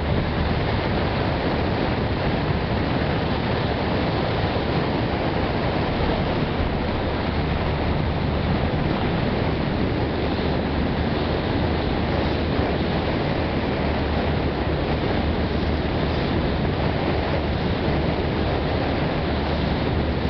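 A passenger boat under way: a steady low engine drone under an even rush of water along the hull and wind on the microphone.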